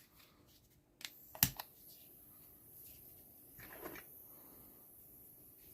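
Butane flame torch being lit: a few sharp clicks about a second in, the loudest just after, then a steady high hiss of the burning gas. Short scraping or rustling sounds come in the middle.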